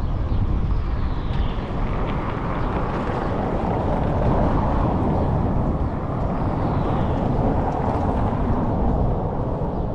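Wind buffeting a small action camera's microphone: a steady, fluttering low rumble with no distinct events.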